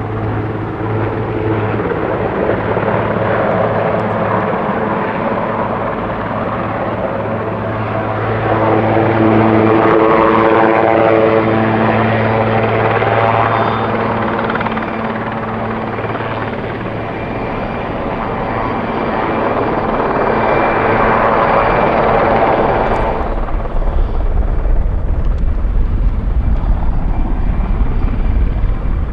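Sikorsky S-61A helicopter running: a continuous rotor and turbine sound with a steady low hum. It swells louder twice, about a third and two-thirds of the way through, and a deep rumble strengthens near the end.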